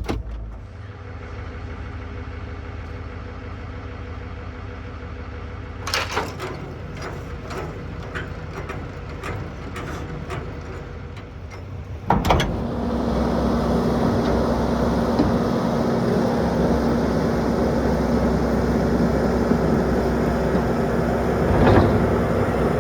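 Skid steer engine running steadily, with a series of metallic clanks and then a sharp bang partway through. After the bang the engine runs louder and steadier, as the machine is driven onto its trailer to be loaded. A single knock comes near the end.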